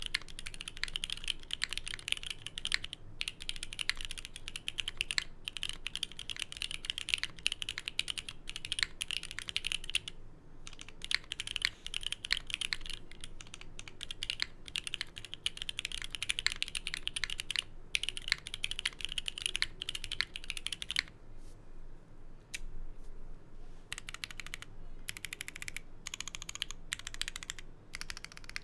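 Fast continuous typing on a Geonworks F1-8x mechanical keyboard with lubed, filmed Gateron Silver Snow linear switches on an aluminium leaf plate and PBT keycaps: a dense run of keystroke clacks, broken by a few brief pauses and a sparser, slower stretch past the middle.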